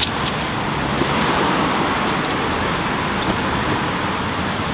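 Steady street traffic noise: a continuous rush of cars on the road alongside, with a few faint sharp ticks.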